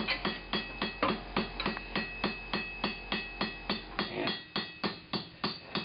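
Blacksmith's hand hammer striking hot steel on an anvil in a steady run of quick blows, about three to four a second, with a ringing tone carrying between them: drawing out the tip of the piece.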